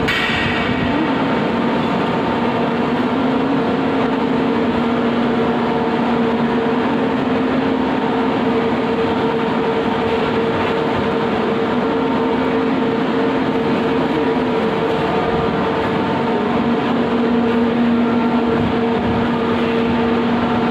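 Turmeric impact pulverizer running steadily: a loud, constant machine hum with a few steady tones over a dense whirring, grinding noise.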